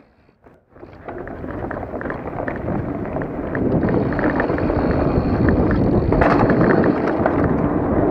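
Astrix Stryke full-suspension mountain bike riding down a dirt trail: tyre rumble, rattling clicks from the bike, and wind on the microphone. It starts about a second in and grows louder over the next few seconds as the bike picks up speed.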